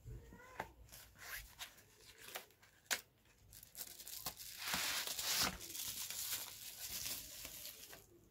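Cardboard eyeshadow palette boxes handled, with a few light taps and knocks, then from about four and a half seconds in a stretch of about three seconds of plastic packaging crinkling and tearing as a palette is unwrapped.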